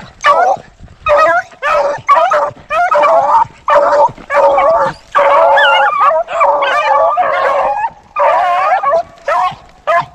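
A pack of rabbit hounds baying in a string of drawn-out, wavering howls and yelps, several voices overlapping, as the dogs run a rabbit's track.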